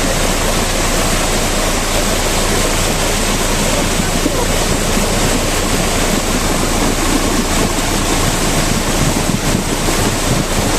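Floodwater rushing across a road after a heavy downpour: a loud, steady rush of water with no let-up.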